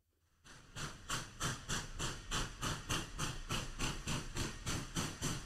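Steam locomotive chuffing at a steady pace, short hissing exhaust beats about four times a second, fading in about half a second in.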